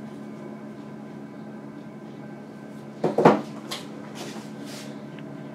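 Steady low hum of a kitchen appliance, with one sharp knock about three seconds in and a few soft rustles after it.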